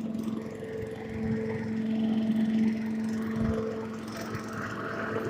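A motor running steadily, a constant-pitch hum with background noise.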